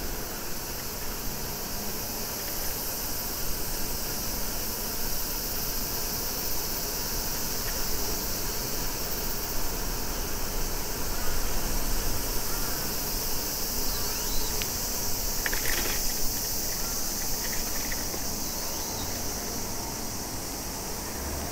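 Steady, high-pitched chorus of summer cicadas, with a low rumble beneath it.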